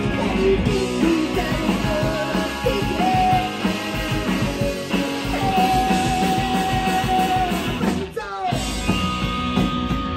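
Live punk rock band playing: distorted electric guitars, bass and a drum kit, with a woman singing and holding long notes. There is a short break with sliding pitches about eight seconds in before the band carries on.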